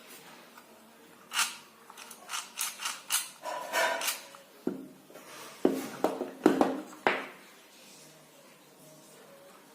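Handling noises from model-building work: a quick run of scrapes, rubs and sharp clicks, thickest in the middle seconds, with a few louder knocks just before the end of the busy stretch.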